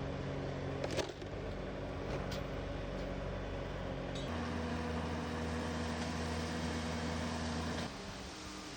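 A heavy machine's engine running steadily, with a couple of light clanks in the first few seconds. Its pitch steps up about four seconds in, holds, then drops back near the end.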